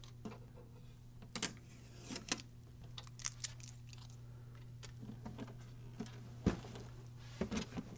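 Quiet handling sounds of a plastic-cased inkjet printer: blue packing tape being peeled off with a few soft crackles and taps, then the printer being turned around on the table with a knock about six and a half seconds in. A steady low hum runs underneath.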